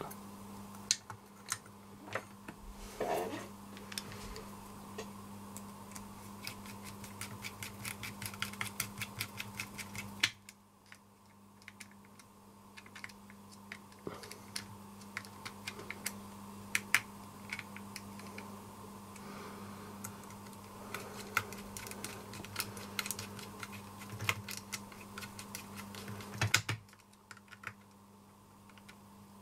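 Many light, irregular clicks and taps from small parts of an H0 model locomotive being handled and fitted, over a steady low hum. The hum drops out briefly about ten seconds in and again near the end.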